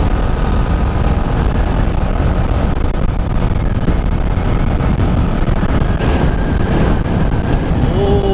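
TVS Apache RR310 single-cylinder engine running steadily at a cruise of around 80 km/h, under heavy wind rush on the helmet-mounted microphone.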